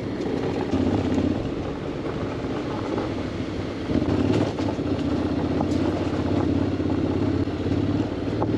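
Honda X-ADV 750's parallel-twin engine running steadily at low road speed, its note picking up a little about four seconds in.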